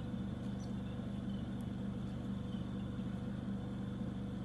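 Steady low hum with no change, a background machine-like drone.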